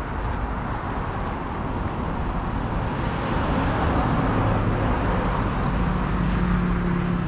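City street traffic noise, with a motor vehicle's engine hum growing louder from about halfway through as it draws near.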